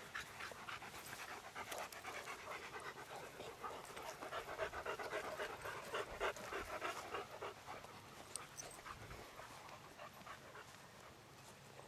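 A dog panting in quick, rhythmic breaths close to the microphone, strongest through the middle and fading toward the end.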